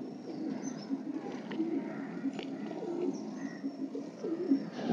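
Domestic pigeons cooing, a run of low, wavering coos that overlap and repeat.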